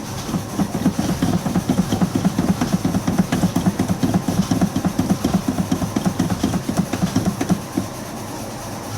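Starter motor cranking a cold classic car engine in rapid, even pulses for about eight seconds without it catching, then stopping. The owner suspects a cracked fuel line letting the engine suck air in the cold.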